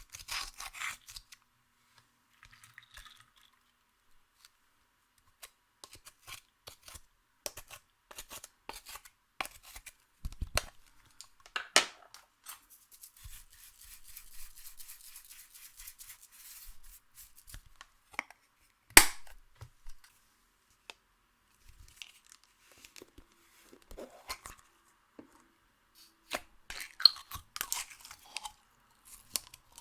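Hands working sticky clear slime: scattered crackles, clicks and air-bubble pops, with a stretch of fine crackling in the middle and one loud sharp pop about two-thirds of the way through.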